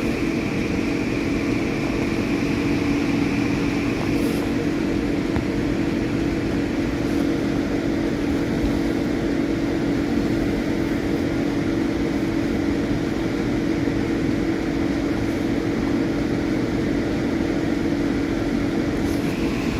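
Steady mechanical hum: a constant low tone over an even hiss, unchanging throughout.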